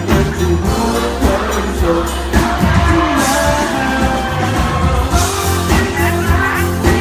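Live pop music: a band playing with a singer's voice over it.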